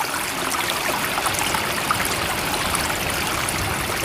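Steady flowing water, a continuous rushing wash with small splashes and trickles running through it.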